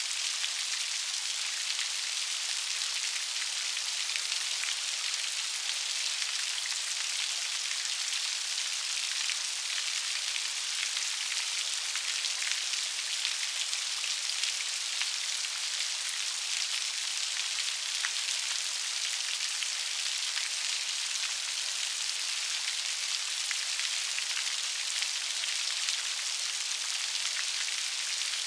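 Steady rain with many close raindrop ticks, a bright even hiss with almost no low rumble.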